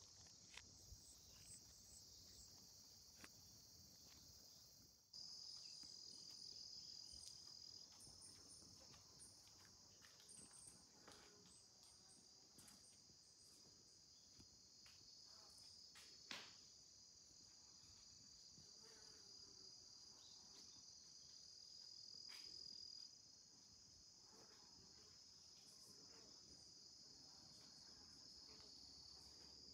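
Faint, steady high-pitched insect chorus, growing a little louder about five seconds in, with a single soft knock partway through.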